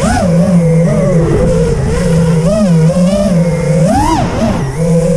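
Motors and propellers of an XL5 v4 FPV quadcopter on a 4S battery, heard from its onboard camera, whining with a pitch that rises and falls with each throttle change. The biggest surge comes about four seconds in.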